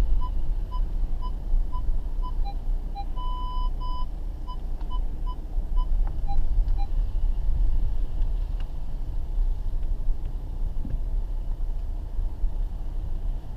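Parking-sensor beeping inside a VW Passat Alltrack, about two short beeps a second, running together into a steady tone for a moment a few seconds in, with a few lower-pitched beeps mixed in, then stopping about halfway through: the car's distance warning for close obstacles. Under it is the steady low rumble of the car creeping along a rough dirt lane.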